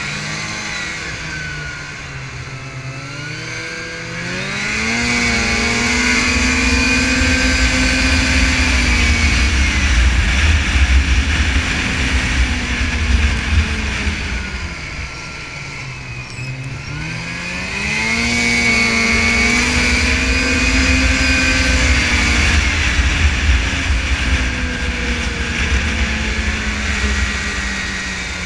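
Snowmobile engine running at trail speed, heard from the sled itself. The revs climb about four seconds in and hold, drop around the middle, then climb again and ease off near the end.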